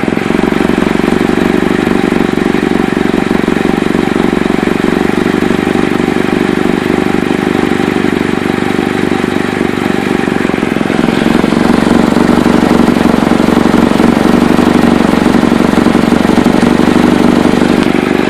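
2008 Chevy Cobalt's 2.2-litre four-cylinder engine running steadily with a loud exhaust leak, which the owner suspects is at the flex pipe, the exhaust manifold gasket, or both. It gets louder about eleven seconds in.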